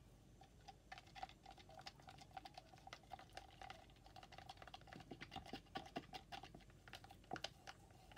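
Wooden stir stick scraping and clicking against the sides of a plastic cup while mixing epoxy resin with glitter: a faint, rapid run of small ticks and scrapes.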